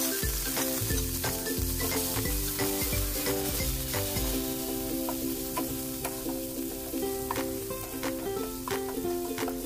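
Raw shrimp sizzling in hot oil with chopped garlic in a nonstick wok, just added to the pan, while a spatula scrapes and knocks against the pan as they are stirred and turned.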